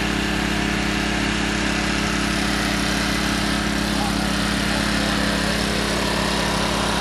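An engine running at a steady idle, with a constant low hum and a hiss over it.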